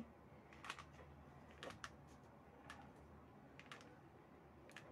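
Faint clicks about once a second from a hot glue gun as its trigger is squeezed to feed out glue.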